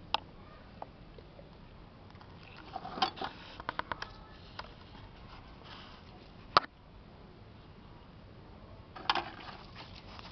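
Hands digging and scraping in dry potting soil around ginger rhizomes, with scattered crackles and rustles from dry roots and soil. Clusters of crackles come about three seconds in and again near nine seconds, with one sharp click, the loudest sound, about six and a half seconds in.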